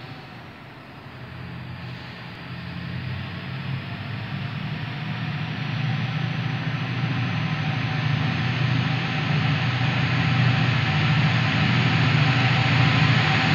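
Class 68 diesel-electric locomotive approaching with a loaded stone train: a low engine drone with a hiss above it, growing steadily louder.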